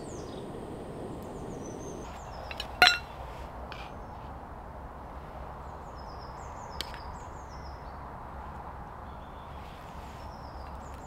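A sharp metallic clink of a camp mug or pot being handled, about three seconds in, and a fainter one a few seconds later, over a steady outdoor hush. Short high chirps of small birds come and go.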